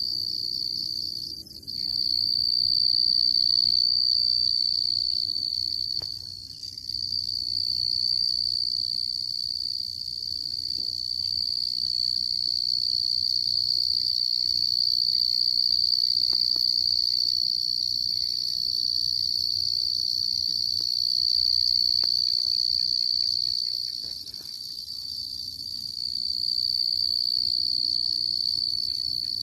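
Chorus of night insects trilling steadily at one high pitch, with a few brief dips in level.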